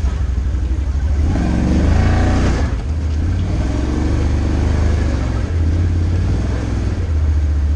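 ATV engine running under way on a rocky dirt trail, a steady low drone with a brief rev-up about a second and a half in.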